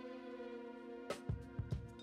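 Background music: a held chord, with drum beats coming in about a second in.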